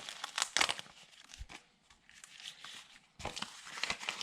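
Paper and cardstock rustling as they are handled, in a cluster of rustles at the start and again near the end, with a quieter stretch between.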